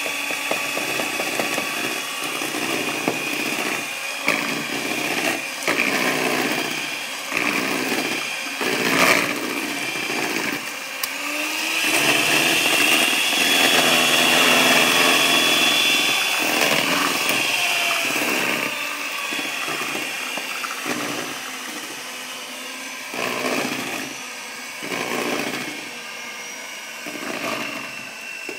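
Electric hand mixer running, its beaters churning thick cake batter as flour and milk are worked in. The motor gets louder for several seconds around the middle, and a few sharp knocks sound along the way.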